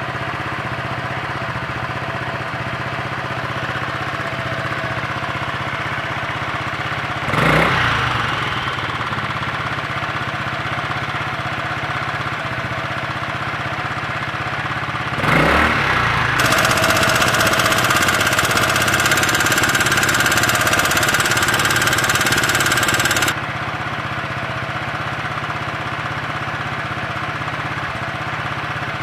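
Honda Freeway MF03 scooter's single-cylinder engine idling steadily, blipped up in revs twice, then held at higher revs for about seven seconds before dropping back to idle.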